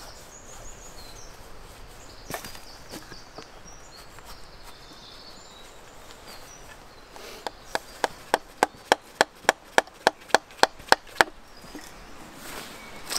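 Wooden mallet striking a chisel into a log: a run of about fifteen sharp, evenly spaced knocks, nearly four a second, growing louder, starting about seven seconds in and stopping after about four seconds.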